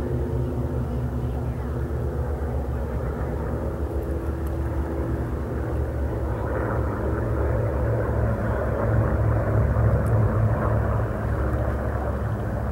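Engine drone of a formation of five World War II-era piston-engine warbirds flying overhead, a steady deep drone. It grows louder to a peak about nine to ten seconds in, then eases slightly.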